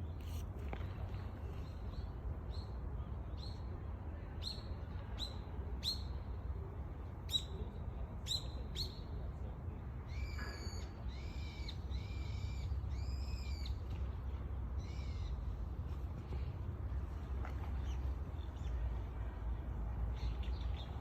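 Wild birds calling over a steady low rumble: a run of short, sharp, falling chirps for the first nine seconds or so, then a handful of arched, whistled calls from about ten seconds in.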